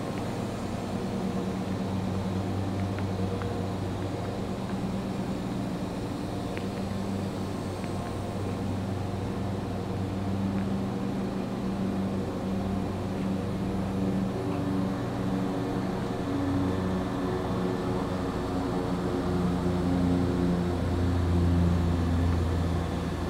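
Steady low hum of powered-up industrial machinery, with several steady tones that shift slightly in pitch and grow a little louder near the end.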